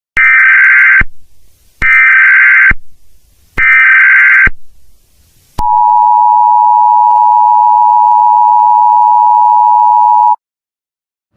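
Emergency Alert System tones: three loud, short bursts of SAME header data tones, about a second each, followed by the two-tone EAS attention signal held steady for about five seconds and cut off abruptly.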